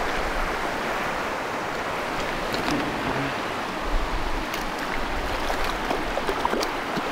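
Shallow river running fast over rocks: a steady rushing noise, with a few faint clicks over it.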